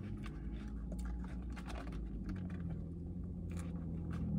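A person chewing a mouthful of burger close to the microphone, with small wet mouth clicks now and then, over a steady low hum.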